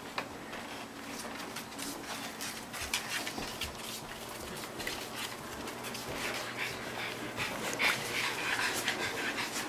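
A dog panting rapidly, with scattered light clicks.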